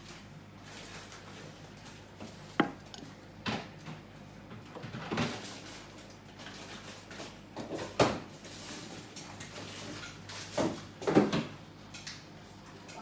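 A stainless steel pot knocks and clanks on the glass top of an induction cooktop, and its metal control knob is handled and turned, in about six separate knocks. About two-thirds of the way through, a faint steady high-pitched whine comes in, typical of an induction zone switching on under a pan.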